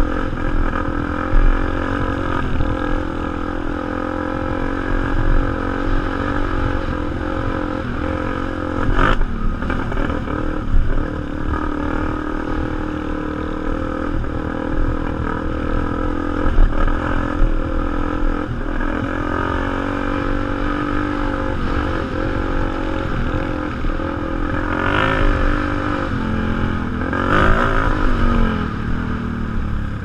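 Enduro motorcycle engine running while riding, its pitch rising and falling with the throttle. There is a sharp knock about nine seconds in and two short revs near the end.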